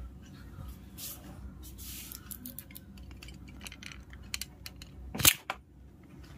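Faint rustling and small clicks of movement, then a loud bump and rub of the camera being picked up and handled a little after five seconds in.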